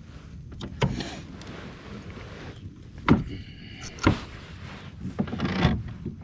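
Several hollow knocks and thuds of gear against the plastic hull of a fishing kayak, with a brief high squeak between them.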